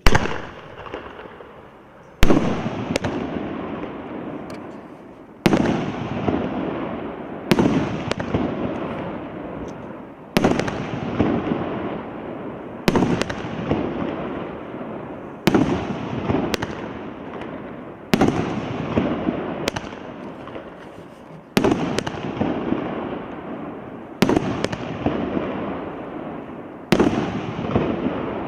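A small multi-shot firework battery (cake) fires its shots one by one, about every two and a half seconds. Each shot is a sharp bang followed by a noisy tail that fades away before the next.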